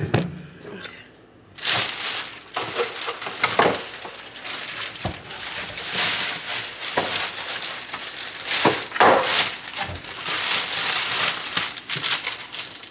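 Packaging crinkling and rustling, with a few light knocks, as the main unit of an ice cream maker is taken out of its box. The handling picks up about a second and a half in.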